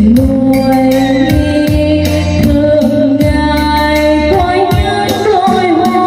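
A woman singing karaoke into a microphone over a backing track with a steady bass beat, played loud through a portable trolley karaoke speaker.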